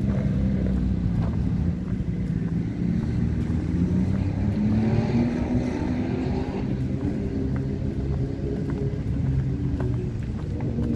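Car engine running, its pitch climbing as it accelerates about four to six seconds in.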